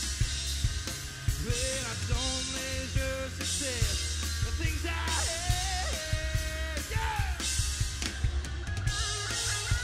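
Live rock band playing mid-song: drum kit with crashing cymbals, bass and electric guitars, with a bending melodic lead line over them.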